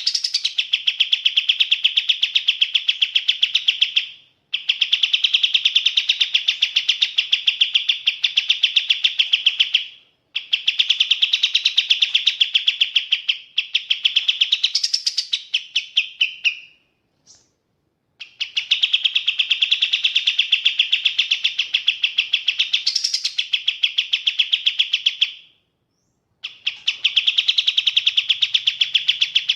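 Kapas tembak bird singing: long, rapid, evenly pulsed trills of several seconds each, broken by short pauses, about five phrases in all.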